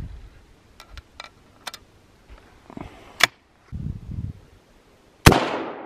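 A few sharp metallic clicks as a rifle cartridge is loaded into a break-action rifle and the action is handled, the loudest click just after three seconds in. Then a single rifle shot about five seconds in, loud, with a short echoing tail.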